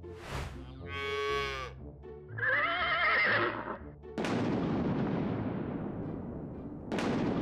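Farm-animal call sound effects, one about a second in and another wavering call about two and a half seconds in. Then a loud thunderclap about four seconds in that rumbles on and slowly fades, and a second thunderclap near the end.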